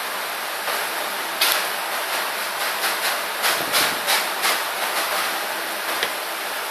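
Steady background hiss with scattered light clicks and clinks of forks on plates and a plastic high-chair tray, once about a second and a half in and several more in the middle.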